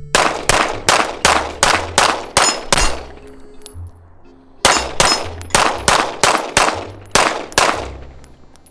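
Rapid shots from a 9mm Stealth Arms Platypus double-stack 1911 pistol: two strings of about eight shots each, roughly three a second, with a gap of nearly two seconds between them.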